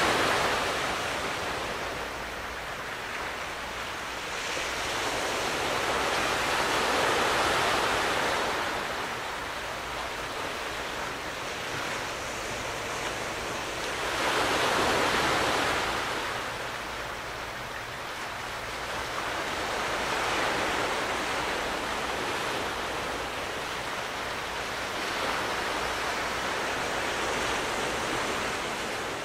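Sea waves washing onto the shore: a steady rushing that swells and ebbs in slow surges every several seconds.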